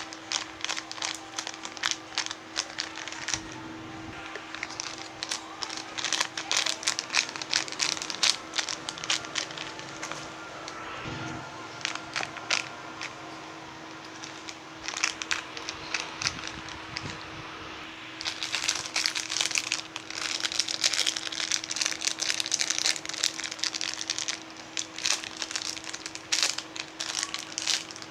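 Crinkling and crackling from squishy toys and their plastic wrapping being handled, coming in irregular clusters of sharp rustles that grow densest about two-thirds of the way through.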